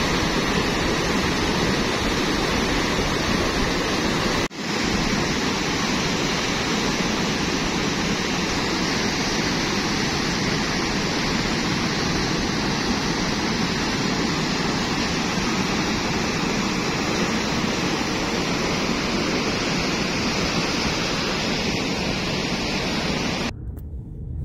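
Rushing floodwater: a steady, continuous rush of a muddy torrent churning and pouring over a spillway, broken briefly about four and a half seconds in. The sound drops away suddenly near the end.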